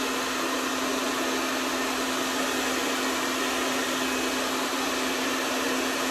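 Handheld hair dryer blowing steadily onto the scalp, a rush of air over a steady motor hum. It is speeding the drying of freshly applied hair-system bond adhesive.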